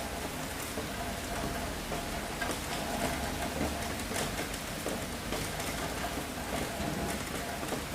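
Steady rain falling, with many individual drops spattering close by.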